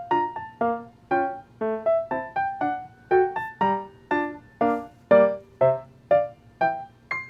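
Background music: a soft piano melody, notes struck about two a second, each fading away.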